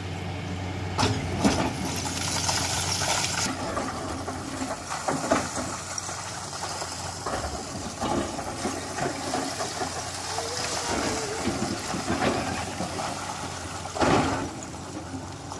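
Hydraulic excavator running: a steady engine hum, with a burst of hiss a couple of seconds in and several sharp knocks, the loudest near the end.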